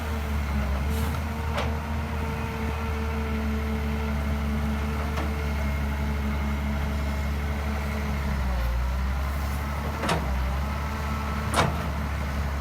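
Excavator's diesel engine running steadily, its note shifting about two-thirds of the way through as the machine works. Three sharp knocks sound over it, the loudest near the end.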